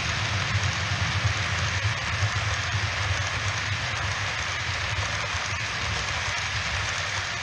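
OO gauge model freight train of yellow wagons running past on the track: a steady rattle of wheels on rails over a low hum, a little quieter near the end.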